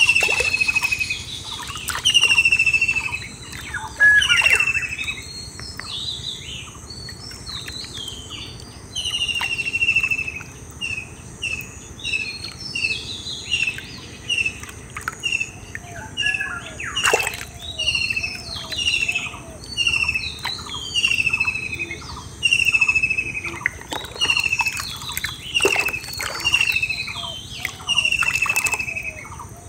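Birds calling: a short falling whistle repeats about once a second over a steady chorus of other chirps. A few brief splashes of hands in muddy water come through now and then.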